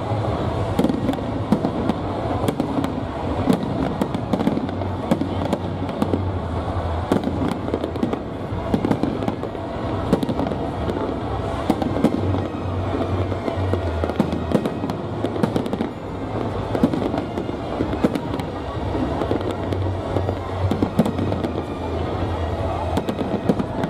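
Aerial fireworks shells bursting and crackling overhead in rapid, continuous succession, with music playing underneath.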